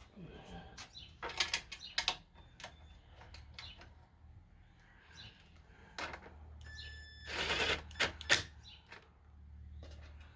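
Clicks and clinks of bolts and tools being handled on a lawn mower, with a short spin-up whine and a brief burst of a cordless impact driver about seven seconds in, run gently to seat a shroud bolt.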